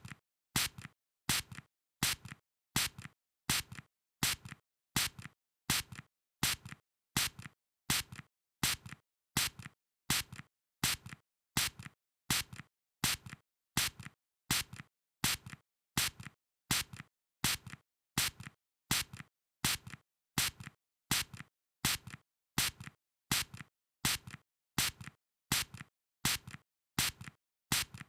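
A spray being squirted in a steady run of short puffs, about three every two seconds. Each is a sharp hiss followed closely by a weaker one, with silence between.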